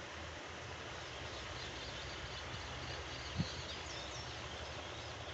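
Small birds chirping in quick short calls over a steady outdoor hiss. There is one brief low thump about three and a half seconds in.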